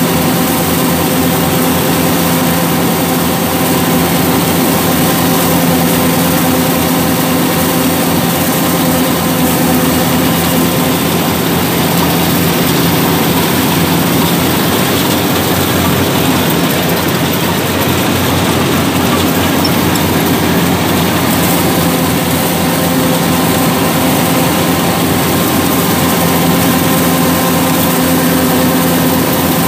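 Yanmar 850 rice combine harvester running steadily while cutting and threshing rice: an even engine hum with the rush of the working machinery, heard from the operator's seat.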